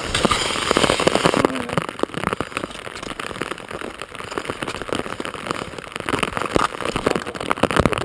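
Wind buffeting a head-mounted camera's microphone: a loud, steady rush full of crackling clicks.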